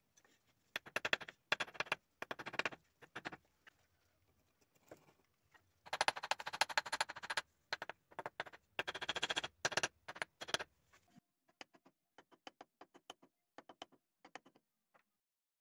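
Gritty scraping against refractory bricks as a gloved hand rubs and sets them. It comes as bursts of rapid rasping strokes, loudest in the middle, then turns to lighter, scattered scratches near the end.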